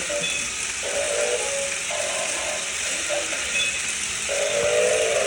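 Background music with short melodic notes coming and going, over a steady hiss.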